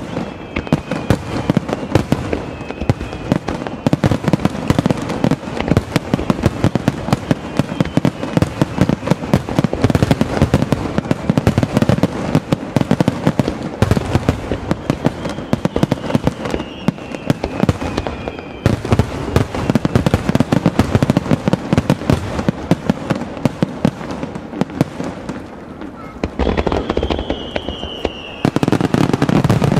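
Lake fireworks going off in a dense barrage of rapid bangs and crackling, with several falling whistles. The bursts echo off the mountains around the basin. After a lighter spell near the end, a heavy burst of bangs.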